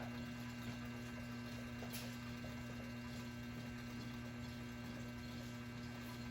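Steady low electrical mains hum, with a few faint ticks.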